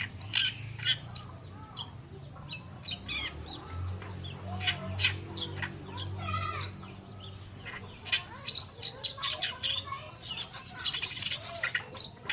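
Oriental reed warbler singing a fast, harsh, varied song of chattering, squeaky and sliding notes, broken about ten seconds in by a quick buzzy rattle that lasts nearly two seconds.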